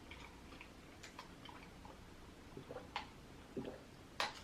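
Soft wet mouth sounds of someone chewing lobster close to the microphone, with a few sharp clicks, the loudest about three and four seconds in.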